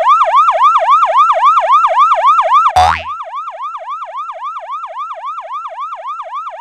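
Electronic yelp siren sound effect, a fast up-and-down wail repeating about six times a second. About three seconds in, a quick falling swoop with a low thud cuts across it. After that the siren goes on much quieter.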